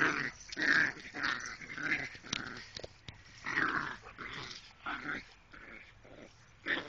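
Two small dogs growling in play as they tussle over a rubber ball, in short irregular bursts.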